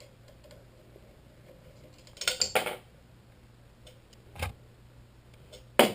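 Small metal parts clinking as the bolts are backed out and taken off a scooter's SCS compression clamp: a short rattle of clinks about two seconds in, a duller knock a couple of seconds later, and a sharp clink near the end.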